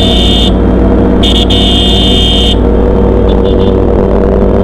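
Motorcycle engines running at steady road speed on a group ride, among them a Kawasaki ZX-10R's inline-four riding alongside. Over the engines a high electronic beep cuts off about half a second in, sounds again for over a second, and gives a few quick short beeps near the end.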